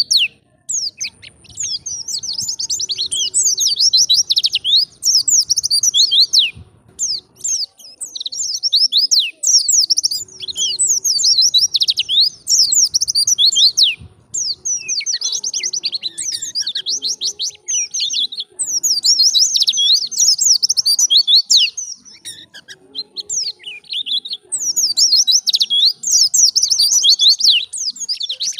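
White-eye (pleci) singing a wild-style 'ngalas' song: long runs of fast, high, twittering notes in phrases of a few seconds, broken by brief pauses.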